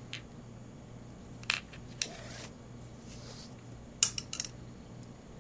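Handling of a bassoon's wooden wing joint during cleaning: a few sharp clicks and a short swish of a cloth swab being pulled through the bore, with a cluster of quick clicks near the end.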